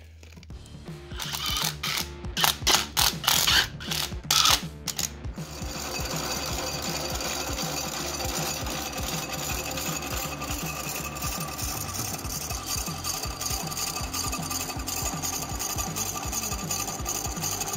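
Milling machine spindle driving a hole saw through thick-wall stainless steel pipe held in a 3D-printed jig: a steady machining sound with a fast chatter from the cutting teeth, starting about five seconds in. Before it come a few seconds of irregular, loud clattering.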